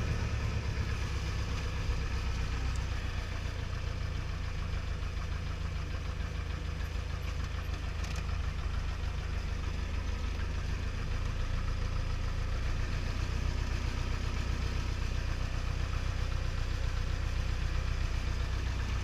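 Piper Colt's four-cylinder Lycoming aircraft engine and propeller running steadily at low taxi power, heard from inside the cabin. It gets a little louder about halfway through.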